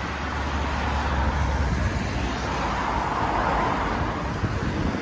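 Road traffic on a multi-lane highway: a steady hiss of car tyres and engines, with a deep rumble in the first two seconds and a car passing close about three to four seconds in.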